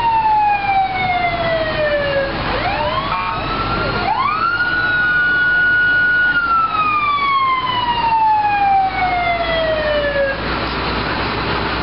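A siren wailing. Its pitch slides slowly down, sweeps up quickly twice, holds high for about two seconds, then slides slowly down again and stops near the end.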